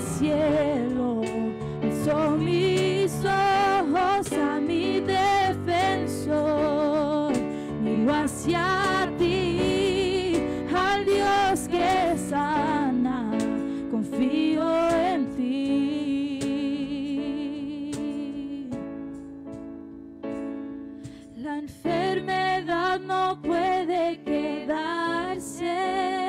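Live worship music: a woman sings a slow melody with vibrato over sustained keyboard chords and cajón strokes. About three-quarters of the way through it drops to a softer passage, then the full band comes back in.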